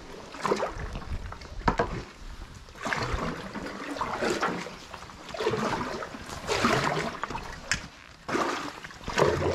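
Kayak paddle strokes in river water: the paddle blades dip and swish about once every second or so, with water splashing and dripping off the blades.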